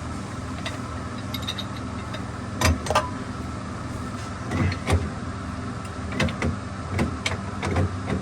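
Short metallic knocks and clicks, several in pairs, as a wrench tightens the water meter's coupling nut, over a steady engine hum.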